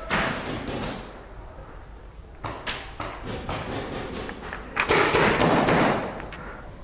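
Paintball markers firing: scattered thuds and sharp taps, then a louder burst of rapid shots about five seconds in that lasts over a second.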